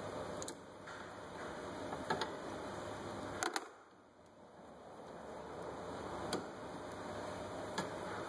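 A few scattered sharp clicks and taps from pliers and metal parts being handled while a radiator hose clamp is taken off, over a steady hiss.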